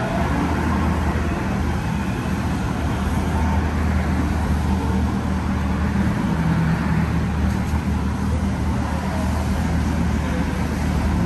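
City street traffic: a steady low engine hum from vehicles, over an even hiss of road noise.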